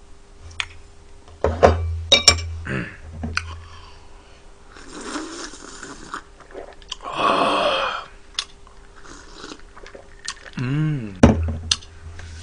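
Light clinks and taps of a glass, bowl and chopsticks on a table, then a man drinking from a glass, with a loud breathy sound about seven seconds in. A brief murmur from him near the end.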